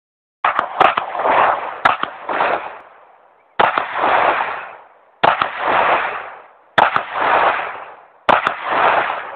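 Handgun shots on an outdoor range: a quick run of several shots starting about half a second in, then single shots about every one and a half seconds, each trailing off for about a second. Recorded on a phone, so the shots sound clipped and dull.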